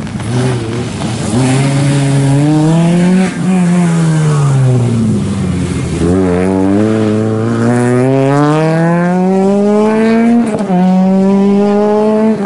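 Peugeot 208 rally car engine at full stage pace. The revs climb and cut about three seconds in, sink low as the car slows for a corner, then rise in a long, steady pull as it accelerates away, with a gear change near the end.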